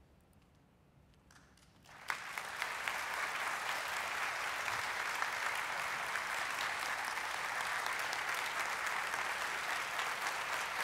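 Near silence, then about two seconds in a large audience starts applauding and keeps up steady clapping.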